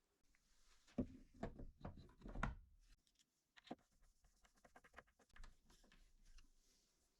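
Quiet hand-tool handling: a quick cluster of soft knocks and scrapes about a second in, then scattered light clicks.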